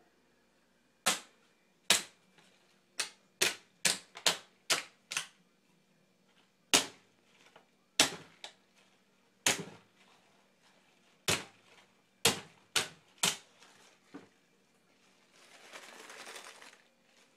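Claw hammer striking a frozen plastic water bottle, about fifteen sharp knocks at an uneven pace, breaking the ice inside into chunks. Near the end come a couple of seconds of rustling as the bottle is handled.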